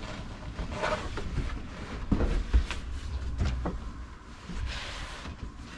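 A person moving about inside a cramped van: a series of light knocks and clicks, with fabric rustling near the end as a hanging curtain is pushed aside.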